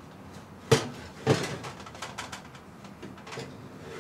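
Metal baking sheet clanking and scraping on the oven rack as it is pulled out. There is a sharp clank about three quarters of a second in, another just after a second, then a few lighter clicks.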